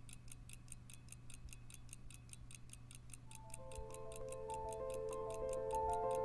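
Mechanical pocket watch ticking steadily at about five ticks a second. From about three seconds in, soft background music with a melody fades in and grows louder under the ticking.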